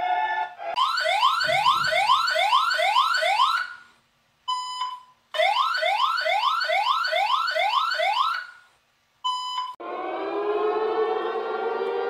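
Emergency alert alarm tones. A steady chord of tones cuts off, then two runs of fast rising whoops, about two and a half a second, each run followed by a short steady beep. Near the end a siren starts a slow rising wail.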